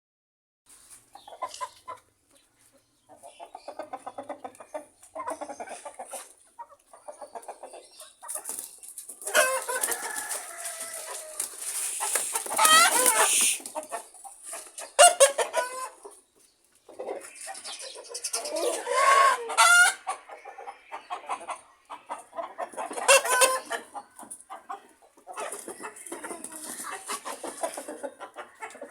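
Chickens clucking in quick rapid runs, with several longer rooster crows and calls in between.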